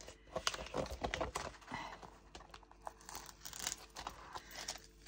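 Plastic backing strip being peeled off the double-sided tape along the edge of a diamond painting canvas, with irregular crackling and crinkling of the plastic film.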